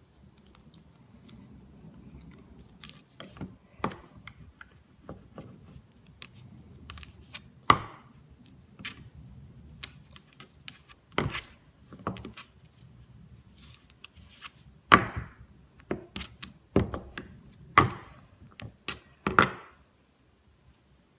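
Scattered knocks and taps from a small plastic rolling pin and hands working flower paste on a plastic cutting mat laid on a steel table, the sharpest five or so knocks coming every couple of seconds in the second half, over a faint low hum.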